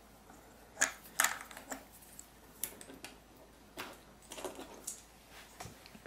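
Banana plugs being pulled out of speaker binding posts and the speaker cable handled: a series of faint, scattered clicks and light knocks.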